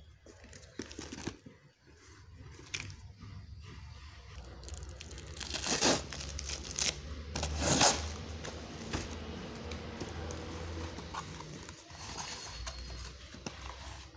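A sealed plastic courier mailer being torn open by hand, the packaging ripping, crinkling and crackling in irregular bursts. The two loudest rips come about six and eight seconds in.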